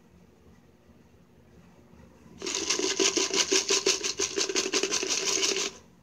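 A can of chips shaken hard and fast, the chips rattling inside in quick even strokes, about seven or eight a second, starting a couple of seconds in and stopping abruptly after about three seconds. The shaking is a call to the cockatoo that chips are on offer.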